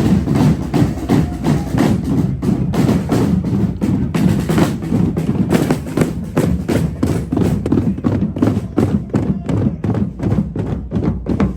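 Music with a steady, driving drum beat: sharp percussive strikes repeating several times a second over fuller low-pitched sound.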